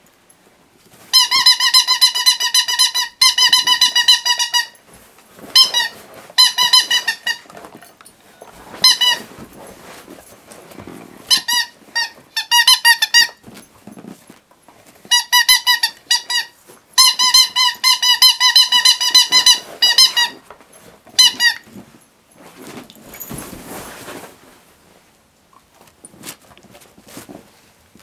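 A husky chewing a squeaky rubber stick toy, setting off rapid runs of high-pitched squeaks in bouts of one to three seconds with short pauses between. Near the end the squeaking stops, leaving softer chewing and rustling.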